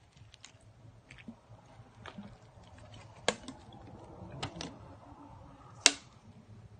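Plastic water bottle and stainless steel bowl of dry kibble being handled as water is poured onto the kibble: scattered light clicks, with a sharp click about three seconds in and a louder one near the end.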